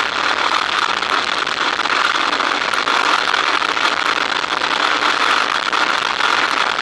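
Boeing-Stearman biplane's radial engine running while the plane stands on the ground, heard as a steady, crackling rush of engine noise and propeller wash over a wing-mounted microphone.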